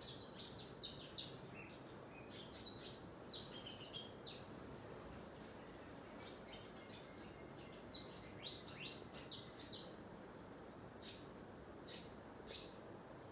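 Small birds chirping: short, high notes that slide downward, repeated in loose bursts with quieter stretches between, over a faint steady hiss.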